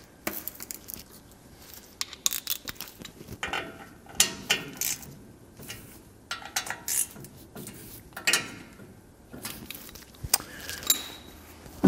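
Metal hand tools and bolts clinking and rattling in short, scattered bursts while a brake backing plate is bolted onto a truck's front spindle.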